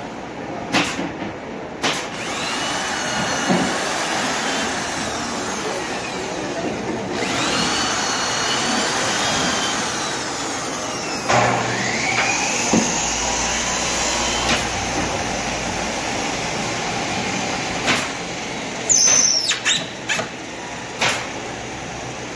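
Cordless drill-driver driving screws into MDF cabinet panels: the motor whines up several times over a steady machine noise. Sharp knocks near the start and a cluster of them near the end as the panels are handled.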